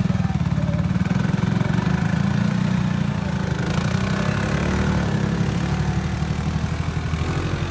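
ATV engine running steadily under load as it pulls up a steep slope, a fast low pulsing engine note.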